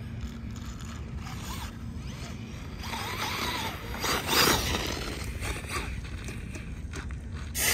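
Electric motor and gear drive of a 1/4-scale Losi Promoto-MX RC dirt bike whining, its pitch rising and falling with the throttle. A louder surge about four seconds in and another near the end.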